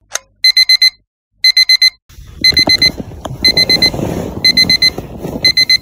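Electronic wake-up alarm beeping in quick groups of four, a new group about once a second, with rustling underneath from about two seconds in.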